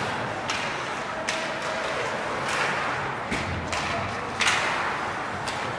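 Hockey play: a run of about six or seven sharp knocks of sticks striking the puck or ball, at irregular intervals over a steady background hiss. The loudest knock comes about three-quarters of the way through.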